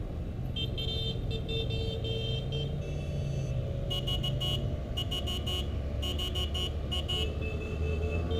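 Motorcycle engines running at parade pace, with horns sounding in repeated short toots through most of the stretch.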